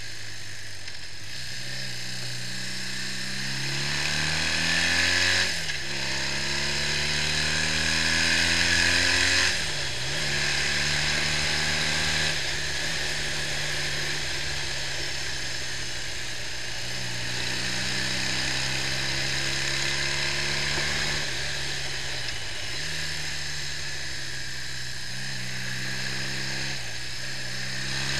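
BMW R65 flat-twin motorcycle engine under way on the road, climbing in revs and dropping sharply at two gear changes, then cruising with small dips in revs, over steady wind rush.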